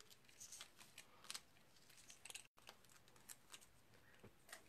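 Near silence with faint, scattered small clicks and scratches: a pointed pick tool poking the tiny cut-out bits of paper out of a die-cut card-stock sentiment.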